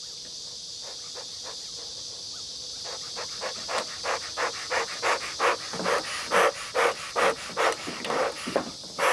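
Bellows of a beekeeper's smoker being pumped by hand, giving short puffs of air about four a second that start about three seconds in and grow louder, as the straw fuel is being lit. A steady high insect hiss runs underneath.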